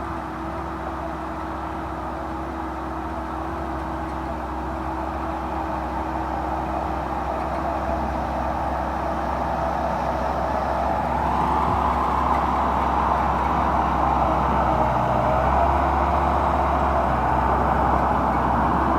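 Diesel engine of heavy earthmoving machinery running steadily, growing louder over the second half.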